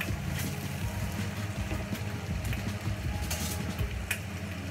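Wooden spoon and slotted spatula stirring and tossing spaghetti in sauce in a heavy enamelled pot, with a few scrapes and knocks of the utensils against the pot, over a steady low hum.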